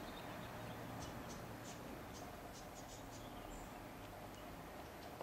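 Quiet outdoor background with scattered faint, short high-pitched chirps and one brief high note about three and a half seconds in.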